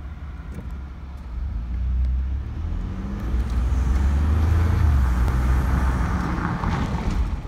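2013 Ford F-150 with the 3.5 L twin-turbo EcoBoost V6 driving, heard from inside the cab: a steady low engine and road rumble that grows louder about two seconds in and again a second or so later.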